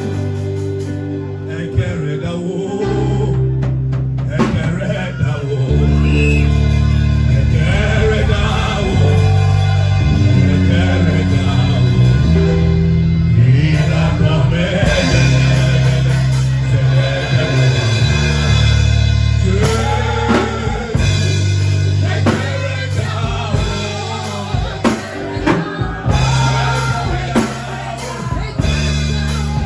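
Gospel music with singing over a drum kit and a heavy, sustained bass line.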